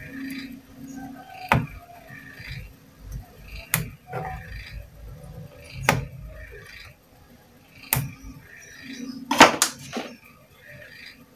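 Sharp clicks about every two seconds, then a quick run of louder clicks near the end, over a low steady hum.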